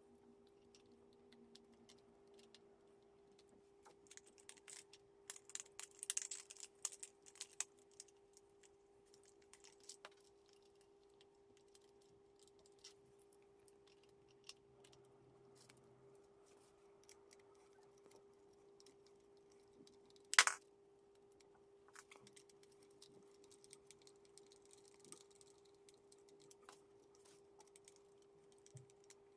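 Faint scattered clicks and light rustling of tool parts and packaging being handled, over a steady hum. One sharp, louder click comes about two-thirds of the way through.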